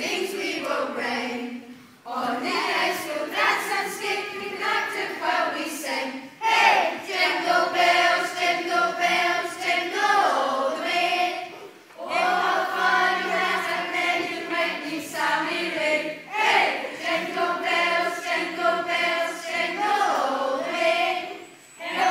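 A group of voices singing together, in sustained phrases of about four to six seconds with brief pauses for breath between them.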